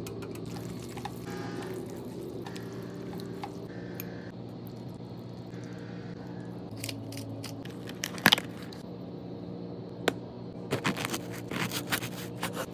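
Bread knife sawing through a crusty baguette on a wooden board, the crust crackling in a quick run of crunches near the end, after a single sharp knock about eight seconds in. A steady low hum sits underneath throughout.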